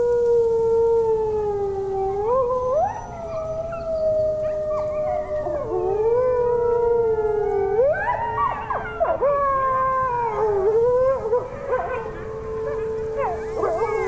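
A pack of wolves howling: long drawn-out howls that slide up and down in pitch, two or more voices overlapping at different pitches, with a busier tangle of howls about eight to eleven seconds in.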